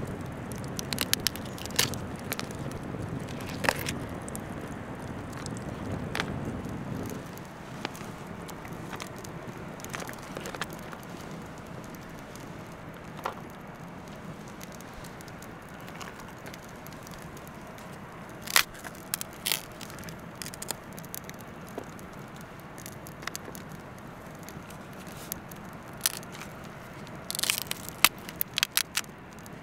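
Cooked king crab shell cracking and snapping as the legs and body are broken apart by hand, in scattered sharp clicks with a quick cluster near the end. A low rumble underneath fades out about seven seconds in.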